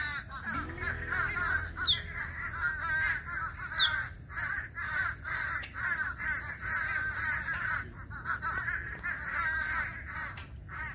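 A flock of crows cawing, many calls overlapping into a continuous chorus. Two brief high squeaks come through about two and four seconds in.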